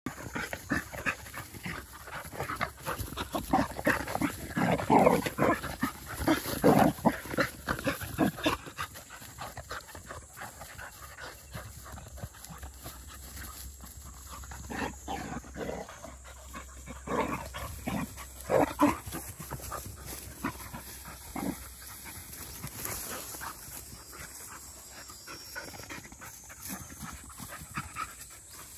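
Two Labrador retriever puppies play-fighting: panting and rough-play dog sounds with scuffling. The loudest bursts come in the first eight seconds and again about two-thirds of the way through.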